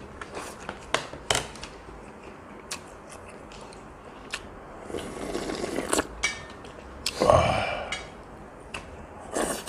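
Close-up eating sounds: a spoon and chopsticks clicking against dishes, then broth of spicy offal stew being slurped from a bowl. A loud breathy sound comes about seven seconds in.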